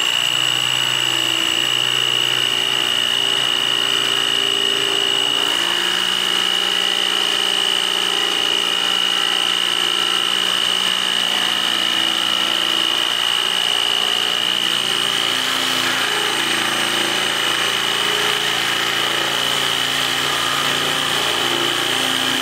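DeWalt DW331K 6.5-amp corded top-handle jigsaw cutting through the edge of a countertop with its speed turned up. The motor and blade make a steady high whine with constant loudness.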